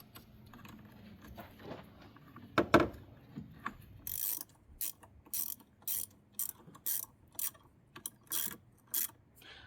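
Hand ratchet with a 10 mm socket clicking in quick repeated strokes on a car battery terminal clamp nut, starting about four seconds in, about two to three strokes a second. A single knock comes a little before three seconds in.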